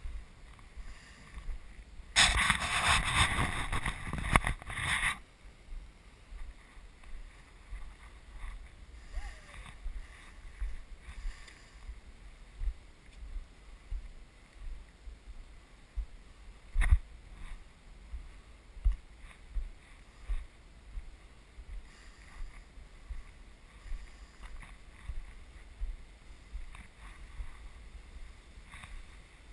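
Footsteps of the camera-wearer walking on bare granite, soft low thuds about once a second, with one sharper knock partway through. A loud rushing noise on the microphone about two seconds in, lasting about three seconds.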